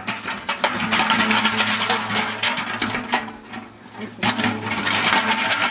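Large empty metal can rolling and rattling over gravel as a young Japanese macaque climbs on it and pushes it, a dense crunching clatter that eases off briefly about three seconds in. A steady low hum runs underneath.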